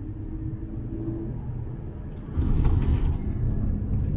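Cabin noise of a 2020 Jeep Cherokee Limited with its 3.2-litre V6 on the move: a low, steady rumble of engine and road. About two seconds in it grows louder, with a short burst of hiss.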